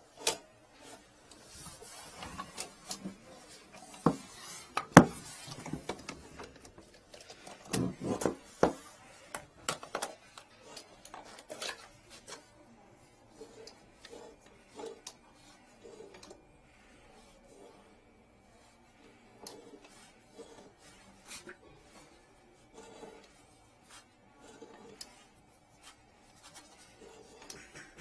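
Irregular knocks, clicks and rubbing from a drain inspection camera's cable being pushed by hand off its reel into a blocked drain. The loudest knocks come about four to five seconds in and again around eight seconds.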